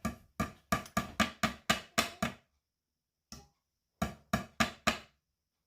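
Sharp repeated knocks with a short ring, about four a second, then a pause, a single knock, and four more. They fit a mixing utensil being tapped against a batter bowl to knock the cake batter off it.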